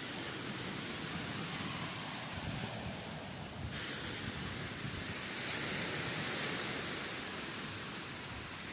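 Steady hiss of sea surf and wind on the beach, which grows fuller and brighter about four seconds in.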